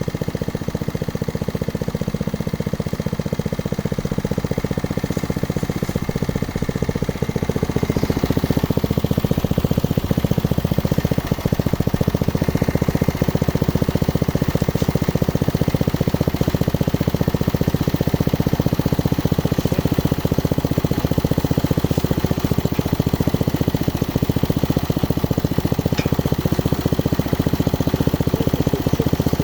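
Engine of a geological exploration drilling rig running steadily with a fast even beat. It gets louder about eight seconds in and holds there.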